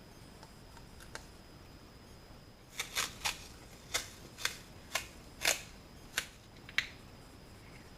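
A run of about nine sharp, irregular clicks and taps, starting about three seconds in and ending near seven seconds.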